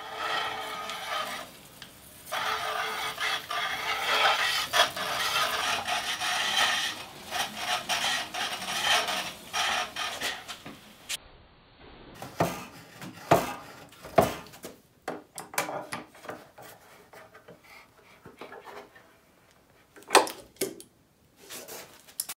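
Wooden hand-powered band saw running with a steady rasping rattle for about ten seconds. After that come scattered light knocks and clicks from its wooden frame being handled.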